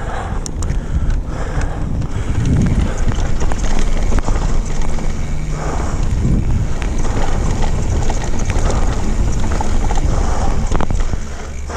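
Mountain bike riding fast down a dry dirt singletrack: wind noise on the microphone over a steady rumble of knobby tyres on dirt, with the bike rattling and knocking over bumps. The noise eases a little near the end.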